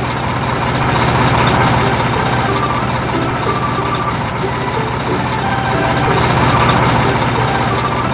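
Truck engine sound running steadily as the toy trucks drive off, a dense noise with a low hum, and short beeping notes at changing pitches over it.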